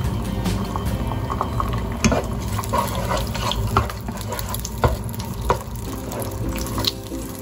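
Eggs frying in hot oil in a pot, a steady sizzle, with a spatula scraping and knocking against the pot about once a second as the eggs are stirred and broken up.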